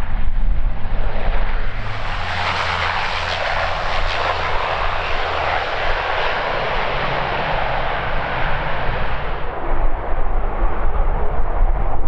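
Saab 340's twin General Electric CT7 turboprop engines and propellers as the aircraft comes in to land and rolls out along the runway. The loud, steady rush swells about two seconds in and eases off near the end.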